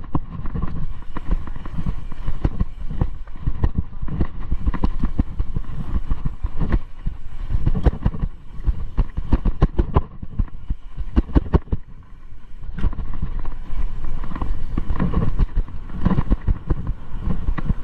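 Mountain bike running fast down a dirt singletrack: tyres rolling over loose dirt with a low rumble, and frequent knocks and rattles as the bike hits bumps. It eases off briefly about twelve seconds in.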